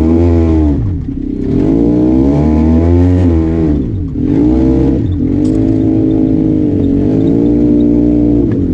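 Arctic Cat Wildcat Trail 700 side-by-side engine revving as it is driven. The pitch rises and falls, drops off about a second in and again around four seconds in, then holds steadier revs.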